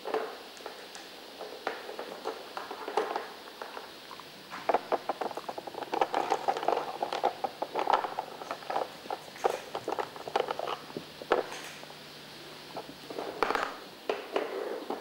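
Dog working a Trixie Chess plastic puzzle board with its nose and paws: quick clicks, knocks and rattles of plastic cones being tipped over and drawers being slid. A few scattered clicks at first, then a dense run of clattering through the middle and a short burst near the end.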